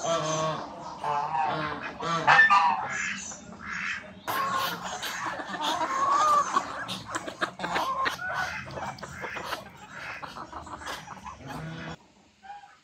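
Mixed domestic poultry calling: geese honking amid chickens and ducks, many calls overlapping. The calls cut off abruptly near the end.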